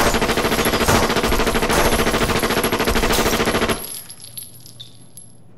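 Long, rapid burst of gunfire, shots coming many times a second for nearly four seconds, then cutting off suddenly. A few faint metallic clinks of spent shell casings follow, over a thin high ringing tone.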